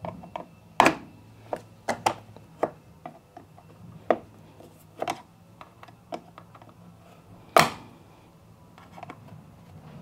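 Irregular sharp clicks and knocks of hard plastic as a screwdriver and hands work the plastic base parts of an Electrolux condenser dryer back into place, with two louder knocks about a second in and near the end.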